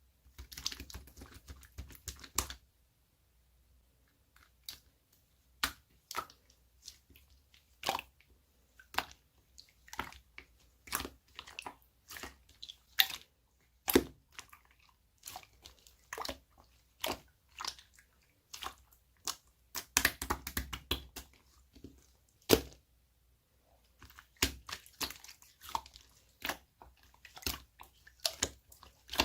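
Slime being squeezed and pressed by hand, giving irregular sharp pops, clicks and crackles in clusters, with a few short silent gaps between handfuls.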